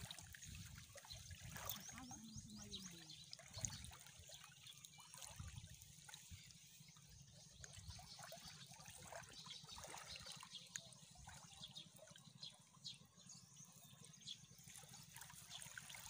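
Near silence: faint trickling of seawater among tide-pool rocks, with scattered small clicks and ticks.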